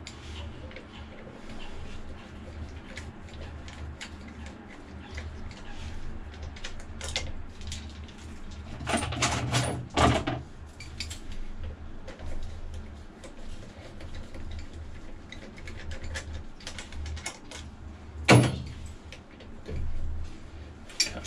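Socket wrench on the flywheel bolts of a Kubota V2003 marine diesel: irregular small metal clicks and clinks of the tool and socket, with two louder metallic clanks, one about nine seconds in and one near the end. A steady low hum runs underneath.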